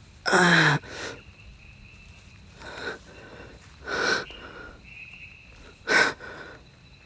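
A man breathing hard in about five loud, rasping breaths and gasps, a second or two apart. The first is the loudest and carries a falling voiced groan. The heavy breathing of someone straining and struggling to hold on.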